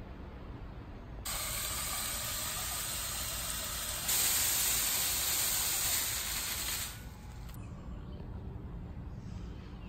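A sprayer hissing in a continuous spray of liquid. It starts abruptly about a second in, gets louder about four seconds in and cuts off about seven seconds in.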